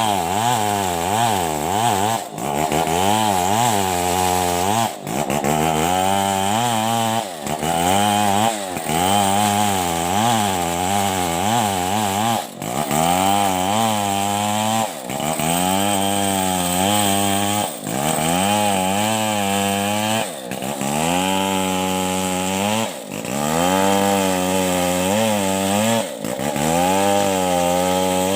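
Large two-stroke Stihl 070 chainsaw running under load while cutting wood. The engine pitch keeps wavering up and down, with a brief drop in loudness every two to three seconds.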